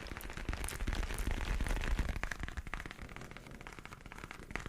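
Dense, close-miked crackling and scratching made up of many small clicks, from ASMR trigger sounds on the microphone. A deep low rumble runs underneath during the first two seconds.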